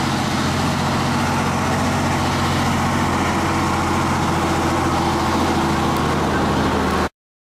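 Engine of a WWII M26 armoured tank-transporter tractor (the 'Dragon Wagon') running steadily at low revs as a deep, even drone. It cuts off suddenly near the end.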